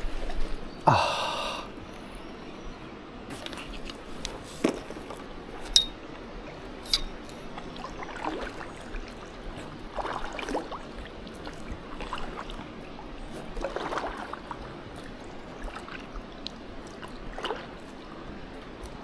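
Water sloshing and splashing softly at the water's edge, with scattered light clicks and one short, louder noise about a second in.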